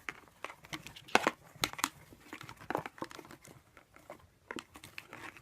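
Irregular crinkling and tearing crackles with scattered sharp clicks, like paper or a wrapper being crumpled and torn.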